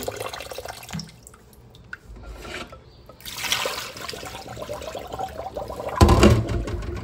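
Tap water running into a bowl of red beans being rinsed in a stainless steel sink, then the rinse water poured off into the sink and splashing toward the drain. Near the end comes a short, louder low thud, the loudest moment.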